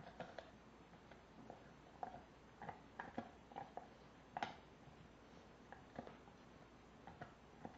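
Rottweiler gnawing a pork bone: faint, irregular clicks and crunches of teeth on bone, the loudest about halfway through.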